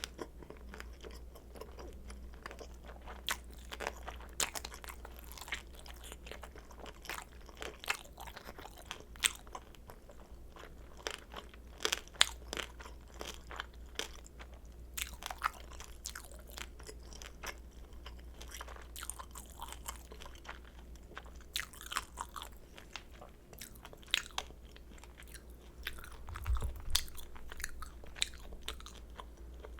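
Close-miked chewing of crispy pan-fried kimchi dumplings: irregular crunching bites and moist chewing crackles, over a low steady hum.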